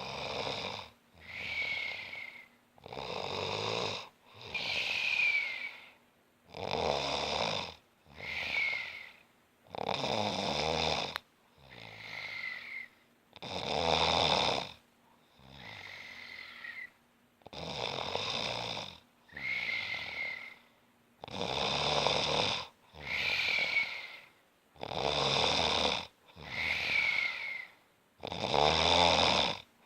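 Rhythmic snoring. A low, rattling snore alternates with a breath carrying a high whistle that drops in pitch at its end, one full breath cycle about every three and a half seconds.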